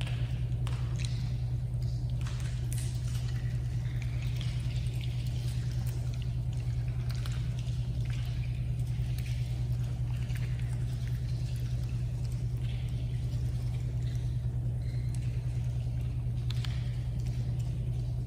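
A steady low hum, with faint scattered clicks and rustles over it.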